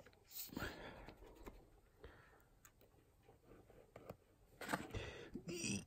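Handling noise from a plastic wood glue bottle being squeezed over the dashboard laminate: soft rustles and small clicks, with a louder burst of noise near the end.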